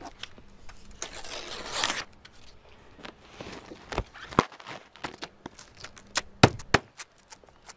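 Sheet of Vvivid holochrome vinyl wrap film crinkling and crackling as it is handled and pressed by hand against the boat's side: a rustle about a second in, then a run of sharp crackles and pops in the second half.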